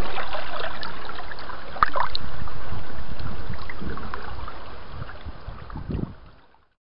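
Steady wind and water noise, with a few faint knocks, that fades out in the last couple of seconds.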